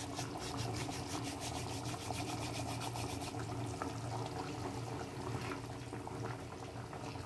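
Thick paneer gravy simmering in a kadai, a low steady bubbling. For the first three seconds, fine rapid crackling as dried fenugreek leaves are crushed by hand over the pan; the crackling then stops abruptly.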